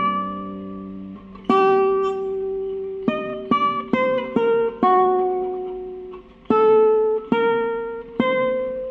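Background music: a slow melody of single plucked guitar notes, each struck sharply and left to ring out and fade before the next.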